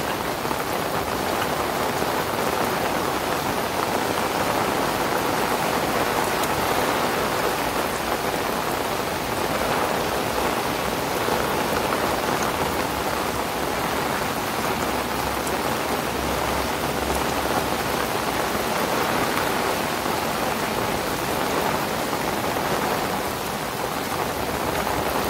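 Heavy rain falling steadily, a dense even patter of a downpour, with the rain drumming on an umbrella held overhead.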